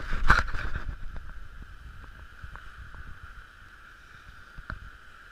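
Handling noise and wind buffeting on an action camera's microphone, loud for about the first second as the camera is moved. It then settles to a faint hiss with a few small clicks.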